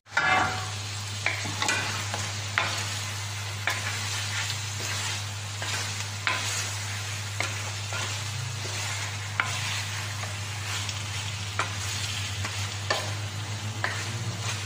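Chicken pieces sizzling in oil in a wok as the juices cook off. A wooden spatula stirs and scrapes the pan with a short stroke about once a second.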